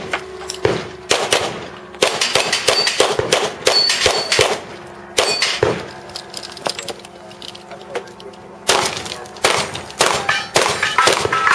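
Rapid strings of gunshots from a 3-gun competition stage, starting with pistol fire, with short high rings of steel targets being hit. About six seconds in the shooting stops while the shooter moves to a new position, and a fresh string of shots starts near nine seconds.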